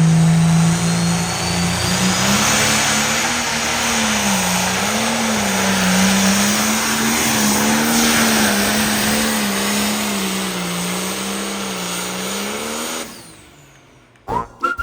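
Pulling vehicle's engine running at high revs under load, its pitch climbing about a second in and then wavering up and down as it drags the sled. The sound cuts off sharply near the end.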